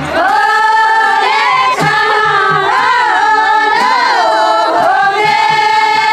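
A group of women singing a Kinnauri folk song together, unaccompanied, in long held notes that slide between pitches. A new phrase begins just after the start.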